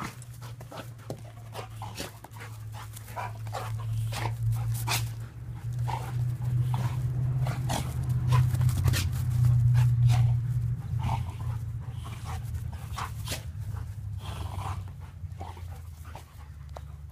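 Dogs play-fighting: panting and a low, continuous play growl that grows loudest about eight to ten seconds in, with scattered quick snaps and clicks.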